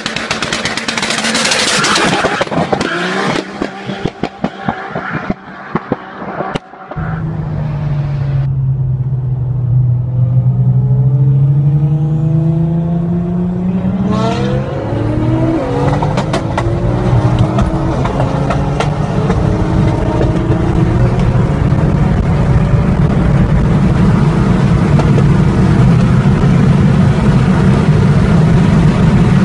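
Car engine at full throttle on a highway, heard from inside a car: after a few choppy seconds of a car going past, the engine note climbs steadily in pitch, drops at a gear change and climbs again, then settles into a loud steady drone of engine, wind and road noise at speed.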